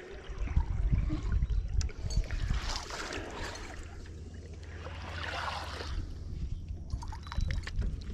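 Wind rumbling and buffeting on the microphone in a boat on the river, with water trickling and two brief splashing swishes about three and five and a half seconds in.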